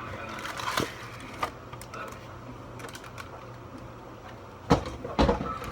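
Kitchen things being handled on a counter: a few light clicks and taps, then two louder knocks near the end.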